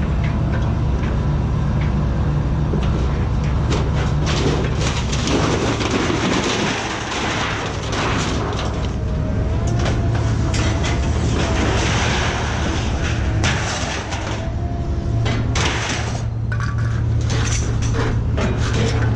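A motor running steadily, with repeated knocks and bangs throughout.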